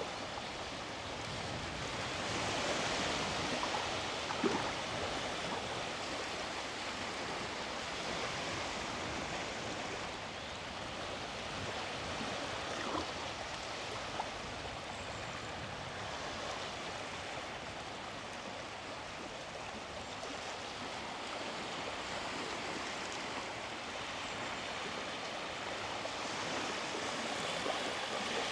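Small sea waves washing onto the beach, a steady rush of surf that swells about three seconds in and again near the end, with a few faint ticks over it.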